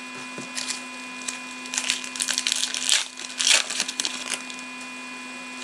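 Trading-card pack wrapper and cards being handled: a series of crinkling, tearing bursts, the loudest about three and a half seconds in.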